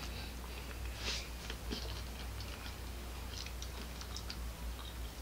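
A person chewing a jelly bean, with small wet mouth clicks scattered through, over a steady low hum.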